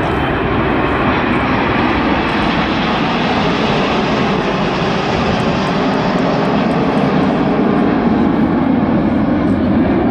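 Jet engine noise of Avro Vulcan XH558 and the Red Arrows' BAE Hawk jets flying past in formation: a steady, loud rush that builds slowly.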